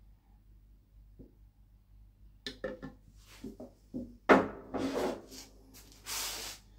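Small metal parts of a lever-type oil friction tester clicking and knocking as the test roller and its fittings are handled and fitted, a run of light clicks with one sharper knock partway through. A short burst of rustling noise follows near the end.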